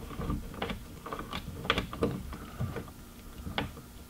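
Light, irregular clicks and taps of fingers handling and hand-threading an Allen cap bolt through the hatch glass into a rear glass hinge, several small knocks a second.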